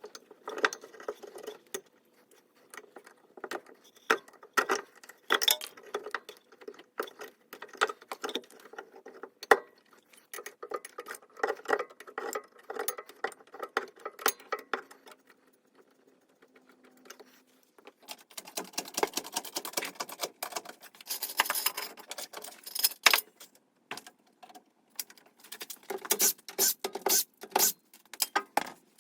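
Irregular clicks, clinks and knocks of hand tools working on metal while rear brake calipers are being removed from a car, with denser rattling spells and a short lull in between.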